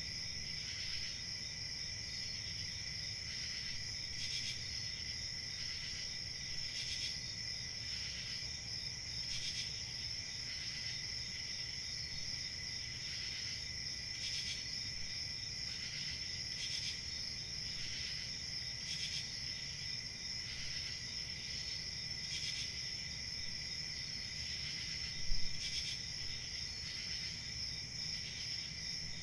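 Crickets chirping in a steady high trill, with louder pulsed chirps from nearer insects every couple of seconds over a low background rumble. A single brief low bump sounds near the end.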